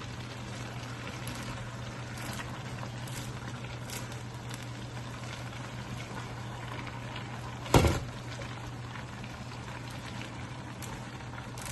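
Stir-fried vegetables and chicken bubbling and sizzling in a pan, over a steady low hum. A single loud knock, like a utensil or lid striking the pan, comes near eight seconds in.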